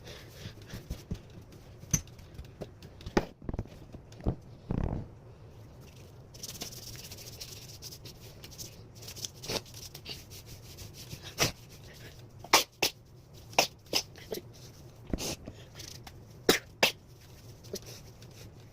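Handling noises of someone dressing: a string of sharp clicks and knocks, densest between about eleven and seventeen seconds in. There is also a half-second noisy burst a little before five seconds and a faint hiss from about six to eight seconds.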